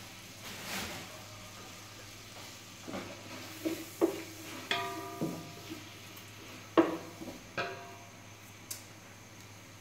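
A wooden spatula knocks and scrapes against the side of a large aluminium pot while stirring onions frying in butter; each knock makes the pot ring briefly. Underneath are a faint sizzle and a low steady hum.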